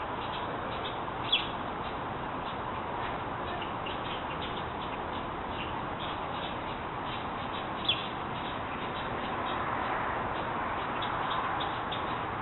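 Baby birds cheeping: a run of short, high peeps over a steady hiss, with two louder chirps, one about a second in and another past the middle.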